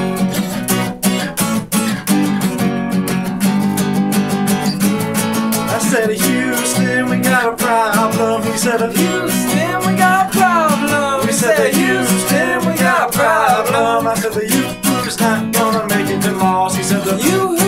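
Two acoustic guitars strumming chords together in a steady rhythm. About six seconds in, a melody with bending, sliding pitches comes in above the strummed chords.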